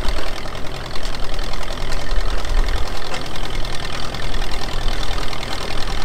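Ferguson TE20 tractor's four-cylinder engine, running on TVO, working steadily under load while pulling a two-furrow plough.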